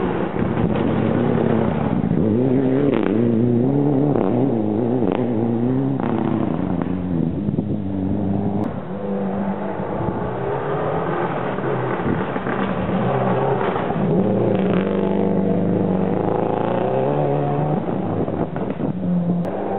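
Rally cars at full throttle on a gravel stage, two passing one after the other, their engines revving up and down through gear changes, with a few sharp cracks in the first half.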